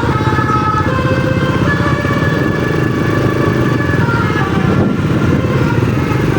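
Telolet horn of a mini road train playing a tune of short high notes that step up and down in pitch, over the steady rumble of a running engine.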